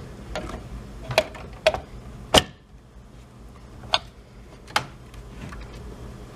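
Sharp clicks and knocks of hard plastic and metal as a graphics card is handled and fitted into a PC case, five in all, the loudest about two and a half seconds in.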